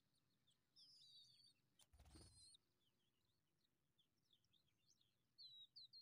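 Faint, high, thin cheeps of skylark nestlings begging for food: a few longer calls in the first half, then a quick run of short cheeps near the end. A brief low thump with a rumble about two seconds in.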